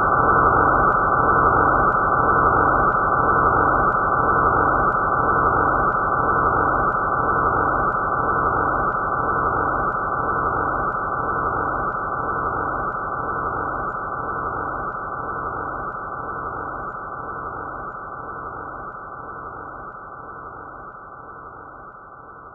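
A "space boom" sound effect: a muffled, low boom that hits at once and then rumbles on, fading slowly and evenly over some twenty seconds.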